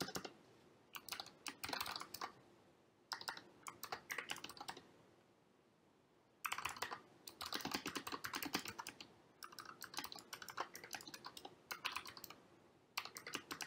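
Typing on a computer keyboard in bursts of rapid keystrokes, with a pause of about a second and a half around five seconds in.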